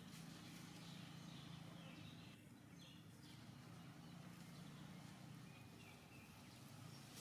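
Near silence: faint outdoor ambience with a steady low hum and a few faint, short high chirps.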